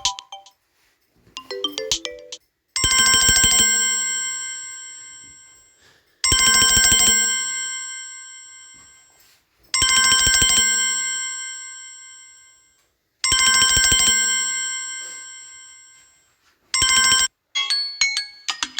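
Samsung Galaxy A21s ringtones. A bell-like chime with many ringing overtones sounds four times, about three and a half seconds apart, each strike fading out slowly. Near the end it breaks off and a different, quicker tinkling melody begins.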